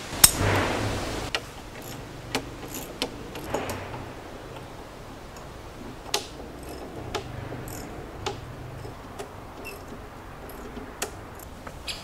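A sharp metallic click as a socket is pushed onto a ratchet wrench handle, followed by scattered, irregular light clicks and taps of metal hardware.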